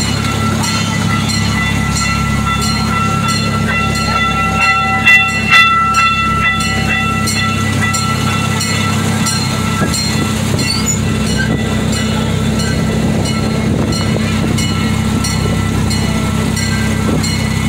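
Miniature amusement-park train running, its motor humming steadily and its wheels clicking regularly over the rails. About five seconds in, its horn gives two short toots.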